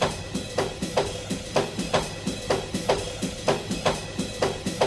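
Background music with a steady drum-kit beat, about two strong hits a second with lighter hits in between.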